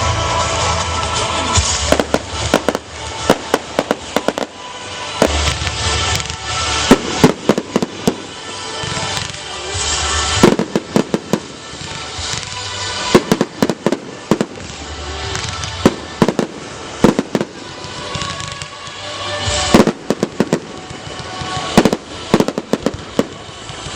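Fireworks display: clusters of sharp bangs and crackles every few seconds, over music playing throughout.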